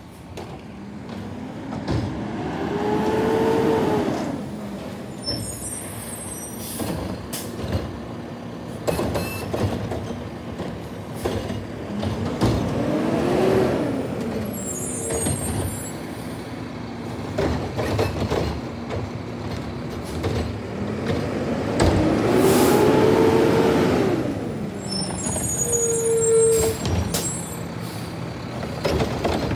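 Automated side-loading garbage truck at work: its diesel engine revs up and falls back three times, about ten seconds apart, as it moves from cart to cart and works the lifting arm. Short air-brake hisses and clanks come between the revs.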